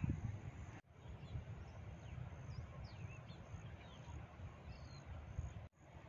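Low, gusty wind rumble on the microphone, with a few faint high bird chirps and whistles in the middle. The sound cuts out for a moment twice.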